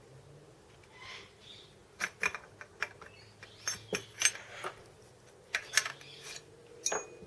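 Small metal machine parts and hand tools being handled, clinking and knocking against one another in a dozen or so sharp, irregular clicks, some ringing briefly.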